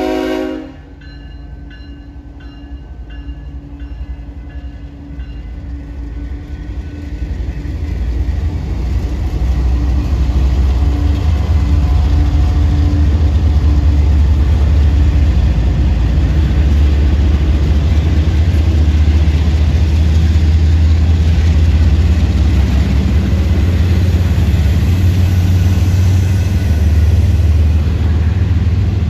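Florida East Coast intermodal freight train passing a grade crossing: a horn blast that cuts off just after the start, then the diesel locomotives and the cars rolling by with a low rumble that builds over about ten seconds and then holds loud and steady.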